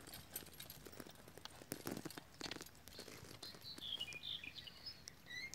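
Horse-drawn plough working stony soil: scattered crunching and scraping of earth and stones with the horse's steps, densest about two seconds in. A bird chirps several times in the second half.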